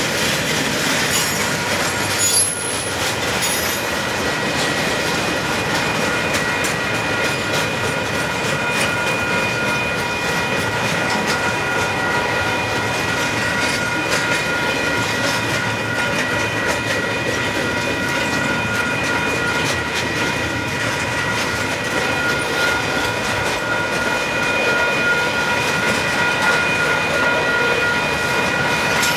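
Union Pacific double-stack container freight train rolling past, its wheels clattering over the rails in a steady rumble. Several steady high-pitched tones run over the noise throughout.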